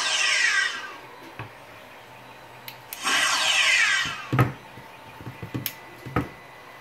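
A phaser rifle prop's sound board plays its firing effect twice, about three seconds apart. Each shot is an electronic sweep about a second long that falls in pitch. After the second shot come several sharp knocks and clicks as the prop is handled.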